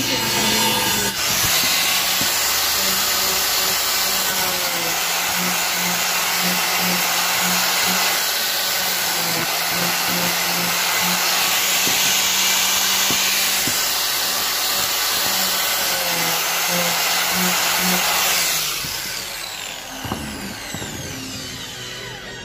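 Bosch angle grinder fitted with a sanding disc, running and sanding pine boards with a steady, loud whine. About 18 seconds in it is switched off and winds down.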